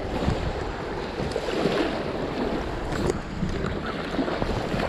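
Wind buffeting the microphone, with small waves washing against a rocky shoreline; a steady, even rush with no distinct events.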